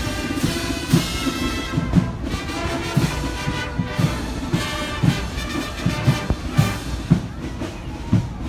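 Street brass band playing as it marches past: horns such as trumpets and trombones over a steady drum beat.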